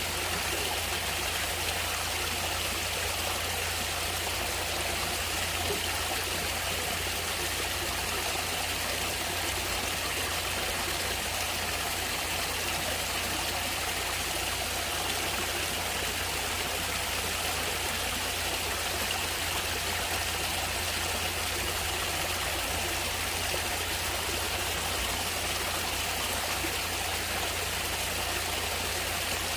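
Natural running water flowing steadily: an even, unbroken wash of water noise with no pauses or separate splashes.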